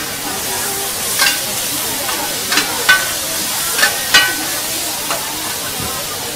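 Noodles and an egg sizzling steadily on a large flat frying pan, while metal spatulas clink and scrape against the pan several times as the noodles are stirred and turned.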